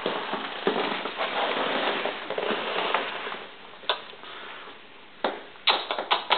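Rustling for about three seconds, then quieter, with a few sharp clicks or taps in the second half.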